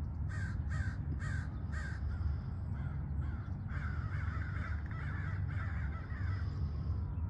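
Bird calls: four short, harsh calls in quick succession, then a longer run of chattering calls, over a steady low rumble.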